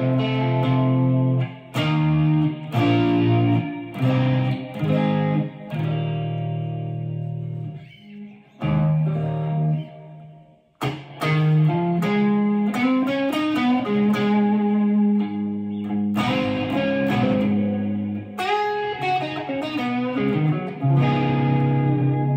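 Made-in-Japan Fender Jaguar electric guitar played through an amplifier: held chords and single-note lines, with a brief pause about ten seconds in.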